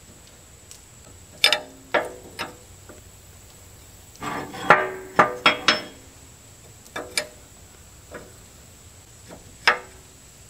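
Steel wrenches clanking and clinking against the hydraulic hose fittings on a backhoe boom while long-seized fittings are worked loose. There are sharp metallic knocks, some ringing briefly, in irregular groups, with a quick cluster about four to six seconds in.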